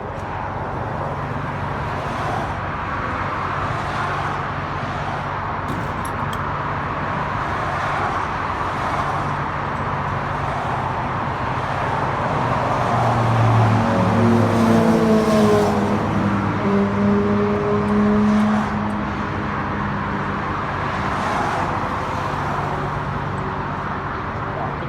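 Vehicle engine and tyre noise while driving at steady speed, with a low engine hum. About halfway through, the engine note grows louder and its pitch rises and shifts for several seconds before settling back.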